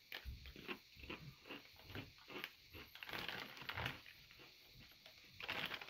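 Rippled Lay's potato chip crunching as it is chewed: a run of sharp, crisp crunches, about two or three a second.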